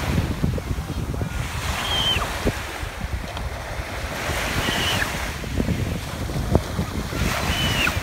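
Small waves breaking and washing over a pebble beach, with wind rumbling on the microphone. A short high call that drops in pitch sounds three times, about three seconds apart.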